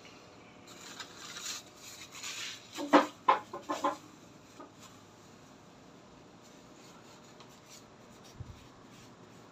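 A wad of towel rubbing over freshly blacked-out tattooed skin during the wiping-down, with a few short, sharp sounds about three to four seconds in, then quiet.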